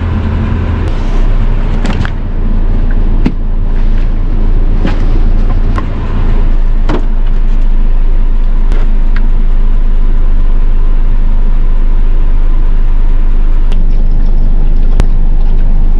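Van air conditioning blowing hard with the engine idling, a loud steady rush of air, with several clicks and knocks in the first seven seconds.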